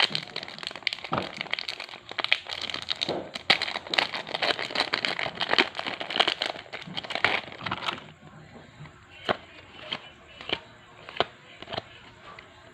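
A Yu-Gi-Oh! booster pack wrapper crinkling and being torn open, then cards being handled one by one with separate sharp flicks, about one every half to three-quarters of a second, for the last few seconds.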